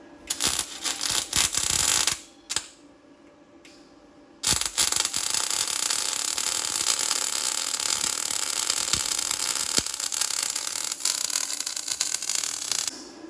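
Electric arc cutting or welding on the steel excavator bucket: a few short bursts of arc, then from about four and a half seconds in a steady crackling hiss.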